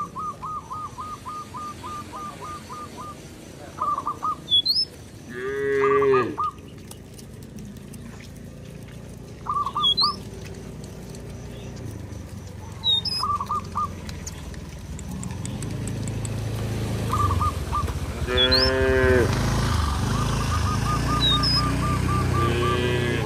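Cattle mooing twice, short calls about six seconds in and again near the end, over birds chirping with quick repeated notes and rising high chirps. In the second half, a growing low crunching of many cattle hooves on gravel as the herd walks past.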